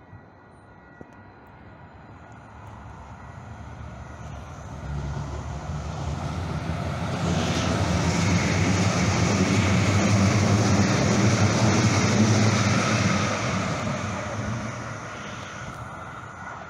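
A Calgary Transit CTrain light-rail train approaches, runs past alongside the platform and moves off. It is heard as a rushing rumble of wheels on rail with a low motor hum, swelling to its loudest as the train passes and fading near the end.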